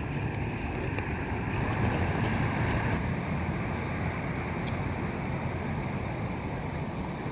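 Steady city street noise of distant traffic, with wind on the microphone.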